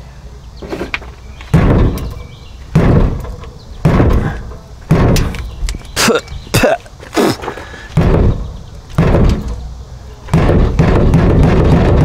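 Repeated hand blows thudding against a Dodge Dakota's fuel tank, about eight in a row, struck to jar the failed fuel pump's open brush contact back into contact. Near the end a louder steady noise starts and lasts about two seconds.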